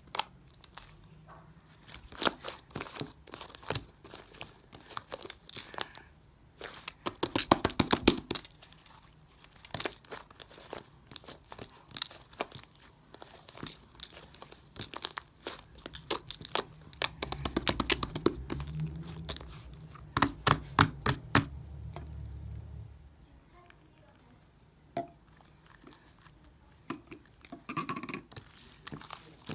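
Slime being squeezed, stretched and poked by hand, giving irregular sticky crackles, clicks and pops, with dense runs of them about 7 seconds in and again about 20 seconds in. A low steady hum sits underneath for several seconds in the second half.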